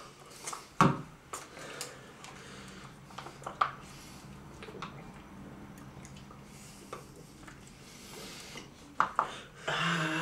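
Plastic spoons (a sundae spoon and a McFlurry spoon) clicking and scraping against plastic sundae cups during fast eating, with a few sharp clicks standing out.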